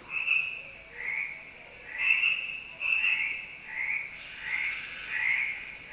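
Recorded chorus of tree frogs croaking, played from a children's sound book: short, high calls repeated over and over, about one every half second to second, some overlapping.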